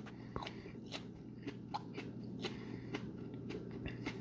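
A person chewing a large, juicy Reaper Bonnet hot pepper pod (a Carolina Reaper x Scotch Bonnet cross) with the mouth closed: faint, irregular wet clicks and squishes of the flesh being worked in the mouth.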